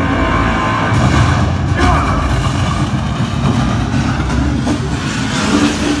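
Movie soundtrack played loud through a Sony HT-S40R 5.1 soundbar system: a dense, steady rumble with heavy bass.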